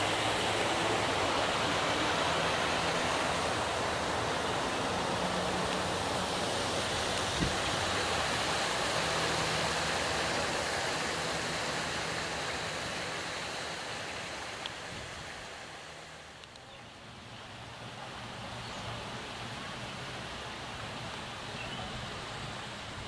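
Steady splashing of water falling from a tiered garden fountain, dying down about two thirds of the way through.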